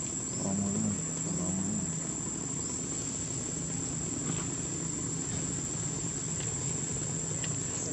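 Insects droning in one steady, unbroken high-pitched buzz, over a low background rumble.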